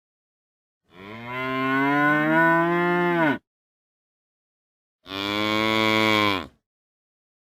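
Cow mooing twice: a long moo of about two and a half seconds whose pitch climbs and then dips at the end, then a shorter moo about two seconds later. Dead silence lies between the calls.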